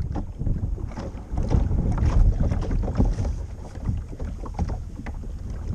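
Kayak on the water with irregular short splashes of water, over a heavy low rumble of wind on the microphone.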